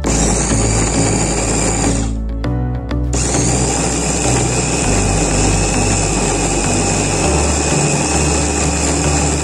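Electric mini chopper running with a high whine as its blade purées raw chicken breast, egg and garlic. It stops for about a second around two seconds in, then runs again.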